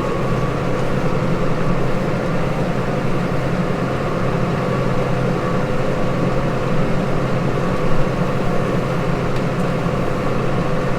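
Case Maxxum 150 tractor engine running steadily under load while pulling a reversible plough and furrow press, a constant low drone with a faint steady whine.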